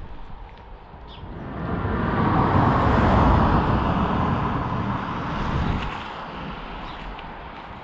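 A car driving past on the road, its tyre and engine noise swelling up over a couple of seconds and fading away again.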